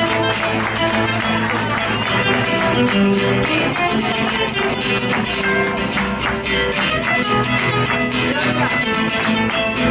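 Argentine folk music: guitars playing an instrumental passage with steady strummed strokes, no singing.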